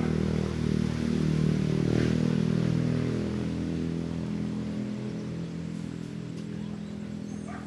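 A small engine running at a steady pitch, growing loudest about two seconds in and then slowly fading away.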